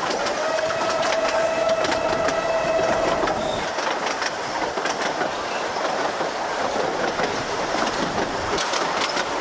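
Isle of Man Steam Railway narrow-gauge train running, heard on board: a steady rumble with the wheels clicking over the rail joints. A steady high tone sounds through the first three seconds or so.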